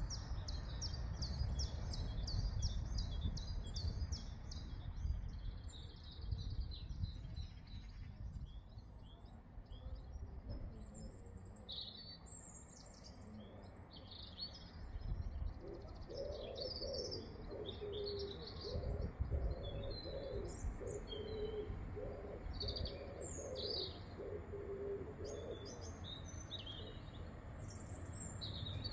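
Small birds singing and chirping: a fast run of repeated high notes at first, then scattered, varied chirps, over a low steady background rumble.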